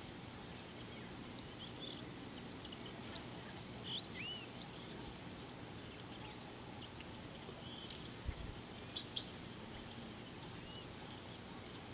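Wild birds calling with scattered short chirps and small arched whistles over a steady outdoor background hiss, with a brief low thump about two-thirds of the way through.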